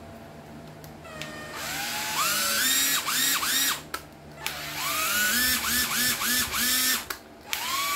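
Hitachi WR12DM2 12-volt cordless impact wrench run free on the trigger: its motor whine rises and falls in a string of quick squeezes, in three bursts with short pauses between, starting about a second in.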